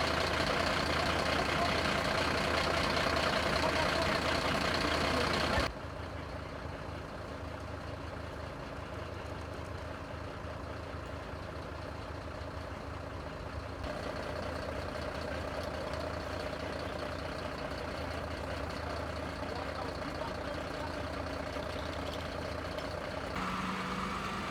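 Fire engines running steadily at the fire ground, a continuous engine and pump hum. It drops suddenly in level about six seconds in and changes character twice more later on.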